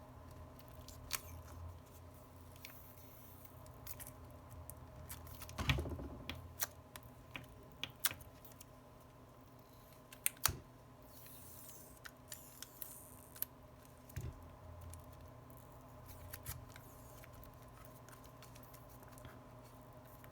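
Scattered light clicks and taps of an iPhone and small tools being handled on a workbench as the glued display is pressed into the frame to close the phone, with a couple of louder knocks, over a faint steady hum.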